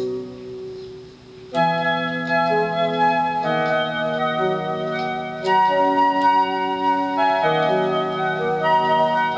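Portable electronic keyboard played with both hands in held chords. The first chord fades out at the start, a new one comes in about a second and a half in, and the chords change about every two seconds after that.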